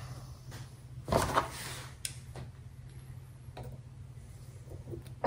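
Scattered light metal clicks and knocks of hand tools being handled at a bench vise, the loudest little cluster about a second in.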